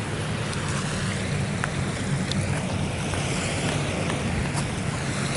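Sea surf washing on the shore, with wind buffeting the microphone as a steady low rumble.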